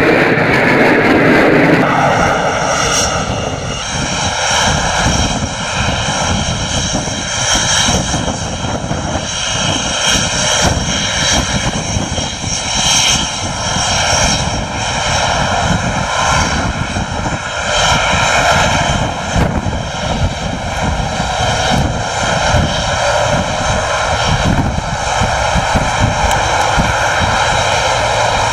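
Panavia Tornado jet, its twin turbofan engines running loud: a falling whine over the first couple of seconds, then a steady, sustained jet noise.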